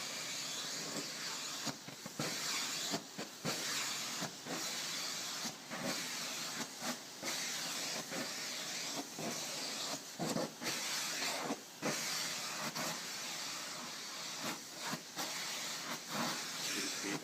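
Vacuum cleaner running, a steady rushing hiss broken by many brief dips.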